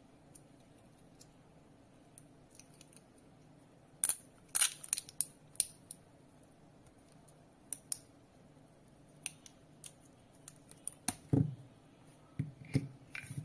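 Handling noise from a small plastic water-leak sensor, its cable and a roll of clear tape: sharp clicks and crackles, bunched about four to six seconds in and scattered after, with a few duller knocks near the end.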